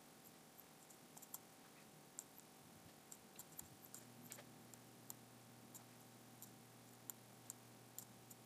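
Faint, irregular computer mouse clicks, a dozen or so scattered through the stretch, over near-silent room tone; a low steady hum comes in about halfway.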